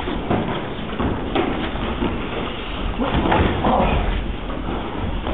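Sparring on tatami mats: repeated thumps and scuffs of bodies grappling and strikes landing, with faint voices behind.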